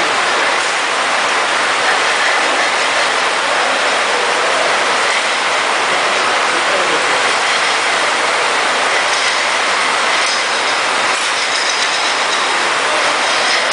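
A small lathe running, drilling into a metal workpiece turning in its collet, with long spiral chips coming off: a loud, steady mechanical noise.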